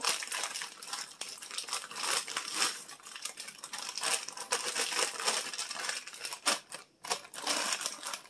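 Pepper stir-fry vegetables shaken from a plastic bag into a ceramic slow-cooker insert: a continuous irregular rattle of pieces dropping and clattering onto the crock, with the bag crinkling. It stops at the end.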